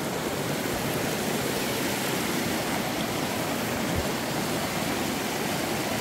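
Mountain stream rushing over rocks, a steady hiss of running water.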